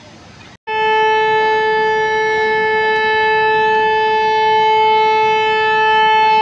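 Locomotive horn sounding one long, steady, loud blast. It starts abruptly after a brief dropout about half a second in and holds one pitch without rising or falling.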